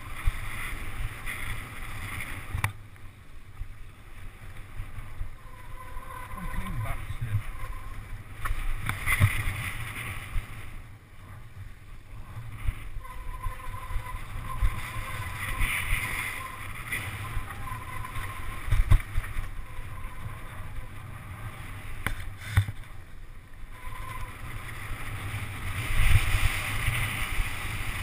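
Mountain bike ridden fast down a dirt and gravel trail, heard from a camera on the rider: a constant rush of air and tyre noise, with the bike rattling and giving sharp knocks over bumps.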